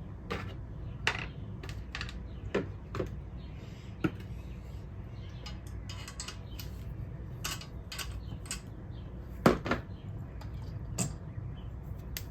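Scattered small metal clicks and clinks of a valve spring compressor, valve springs and keepers being worked on a cylinder head, over a steady low hum, with the sharpest clanks about nine and a half and eleven seconds in.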